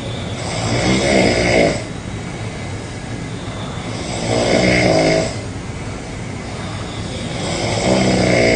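A person snoring loudly: three long, rasping snores about three and a half seconds apart, over a steady background noise.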